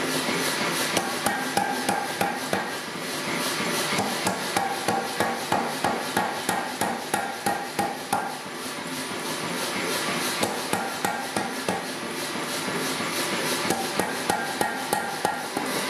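Power hammer striking a glowing steel bar held in tongs, in runs of sharp, even blows at about three a second with short pauses between runs. The bar's corners are being forged down toward an octagonal section.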